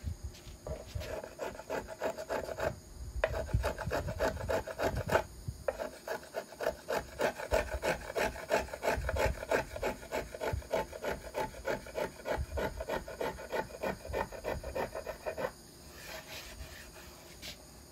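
Small hand tool shaving wood from the carved arch of a violin plate in quick rasping strokes, about three a second. The strokes pause briefly twice and stop a couple of seconds before the end.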